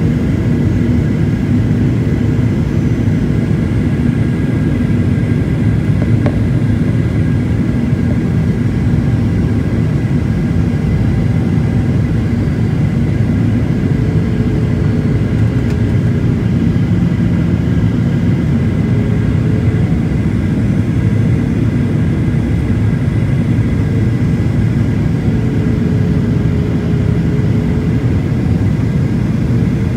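Aeroplane cabin noise in flight: a steady, loud low rumble of engines and rushing air, with a few faint steady tones above it.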